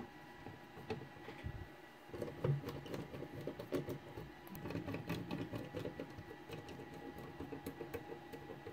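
A hand screwdriver driving small screws into the sheet-metal bottom cover of a 3D printer's control box, giving a quick, uneven run of soft clicks and ticks from about two seconds in.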